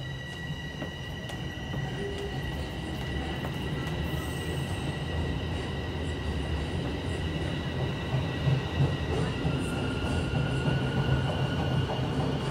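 Bombardier Toronto Rocket subway train moving along the platform: a low rumble of wheels and running gear grows gradually louder, with steady high whining tones over it. About three-quarters of the way in, one whine stops and a lower one takes over.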